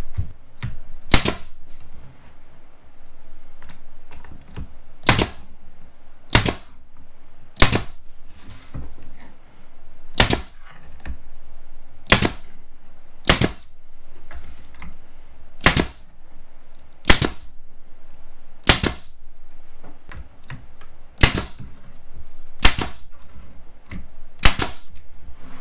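Pneumatic brad nailer firing brad nails one by one, one every second or two, to fasten solid-wood shoe molding onto base molding. Each shot is a sharp snap.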